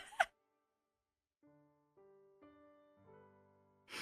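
Soft background piano music: after a second or so of quiet, gentle sustained notes come in one after another. A brief rush of noise sounds near the end.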